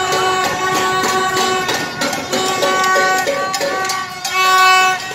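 Handheld party horns blown in long held notes over street noise, with the loudest blast about four and a half seconds in.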